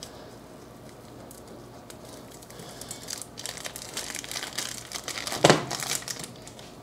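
Plastic wrapping of a ground beef chub crinkling and tearing as it is slit with a knife and peeled off the meat, the crackling building from about two and a half seconds in. A single short thump about five and a half seconds in is the loudest sound.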